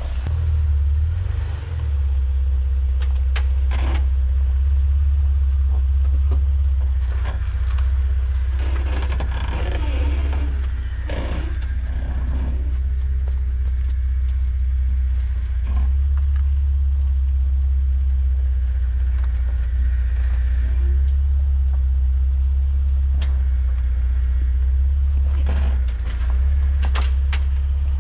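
Jeep Wrangler engine running at a slow rock crawl, a steady low rumble with scattered knocks as the tyres and underbody meet rock.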